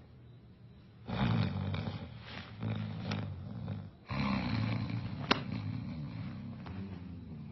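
Loud snoring: two long, rumbling snores of about three seconds each, the second starting about four seconds in, with a sharp click partway through it.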